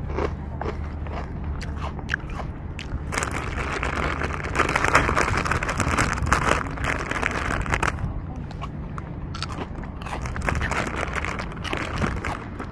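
Footsteps and handling noise from a walking camera, as irregular crunchy clicks, over a low wind rumble on the microphone. From about three to eight seconds in there is a louder hissing rush.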